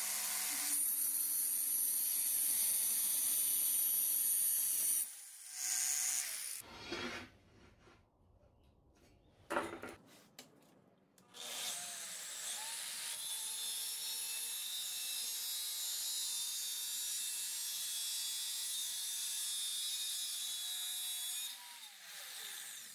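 Stanley angle grinder with a thin cutting disc, mounted under a slotted metal plate as a bench cut-off saw, running and cutting for about five seconds. After a few knocks and handling noises it runs up again and cuts a steel strip for about ten seconds, then its whine falls away as it winds down near the end.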